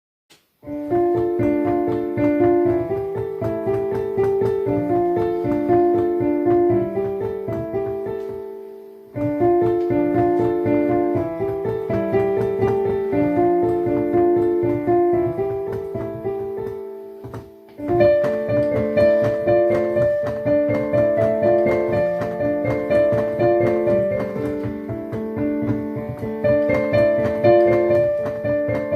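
Piano being played: a melody of single notes over lower accompanying notes. The playing dies away and starts again twice, about 9 and 17 seconds in.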